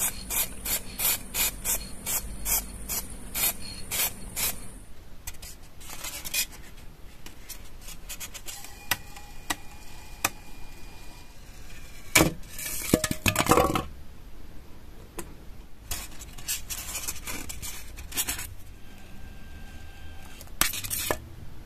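Aerosol can of metallic spray paint shaken, its mixing ball rattling about two to three times a second for the first five seconds. Then styrofoam rubbing and scraping as a block is worked through a hot-wire foam cutter, loudest a little past the middle.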